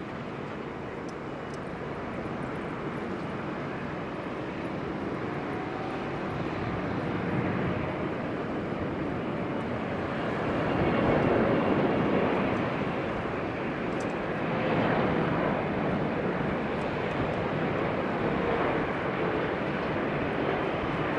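Boeing 777-200F freighter's jet engines, the noise swelling as the airliner comes in to land close by, loudest about halfway through and staying loud to the end.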